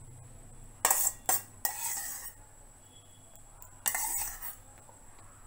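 A spoon scraping and clinking against a bowl and a jar in four short bursts, as yogurt is spooned onto dry oats.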